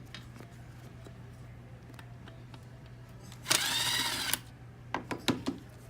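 Small electric screwdriver whirring for under a second, its pitch swelling and falling as it backs out a Torx screw, followed by a few light clicks of small parts being handled.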